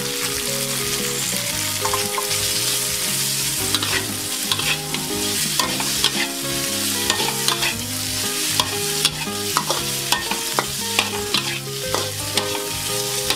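Tofu cubes and sliced shiitake mushrooms sizzling in oil in a wok, with a metal spatula scraping and clicking against the pan as they are stir-fried.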